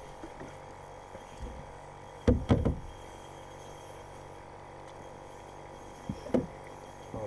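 A steady low hum, with a few dull knocks: a quick run of three about two seconds in, and two or three more near the end.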